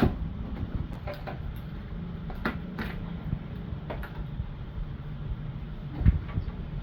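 Scattered clicks and knocks of an electric bicycle's throttle being worked off the handlebar, over a steady low rumble.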